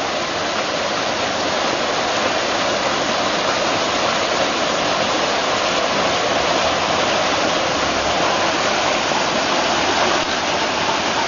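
Water pouring over a rock waterfall into a pond, a steady, unbroken rush.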